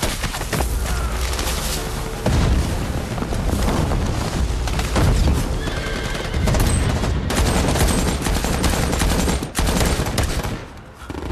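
Battle soundtrack: a dense fusillade of small-arms gunfire with booms of explosions over a heavy low rumble. The firing thins out briefly about ten and a half seconds in.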